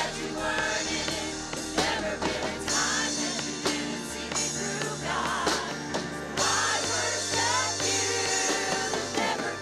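Live gospel worship music: a church praise band with bass, keyboard and drums playing under singers.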